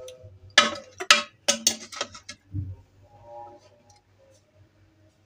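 A metal spoon clinking against a pot and a ceramic plate while sauce is spooned out: a few sharp clinks in the first two seconds, then a dull knock.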